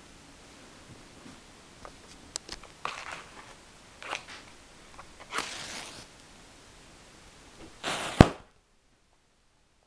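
A miniature clay cannon firing: a brief fizzing hiss as the charge catches, then one sharp pop about eight seconds in. Before it come scattered small clicks and a few short hissing scrapes.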